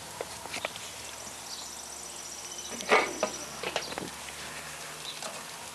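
A loud clatter of metal at a charcoal kettle grill about three seconds in, with a few lighter knocks before and after it. Under this, a faint outdoor background with an insect trilling high and fast through the first half.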